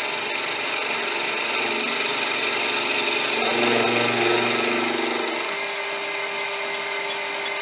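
Bench mini mill running with a 1-inch corn-type roughing end mill taking a light skimming cut across the top of a metal workpiece. The tone shifts around the middle and settles to a steady hum near the end.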